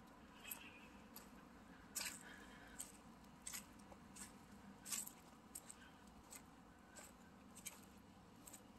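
Footsteps on dry grass and fallen leaves: soft crunches at walking pace, about one every two-thirds of a second, the loudest about two seconds and five seconds in, over faint outdoor hiss.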